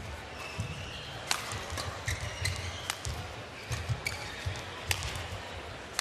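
Badminton rally: sharp cracks of rackets striking the shuttlecock every second or two, with court shoes squeaking in short chirps and feet thudding on the court floor.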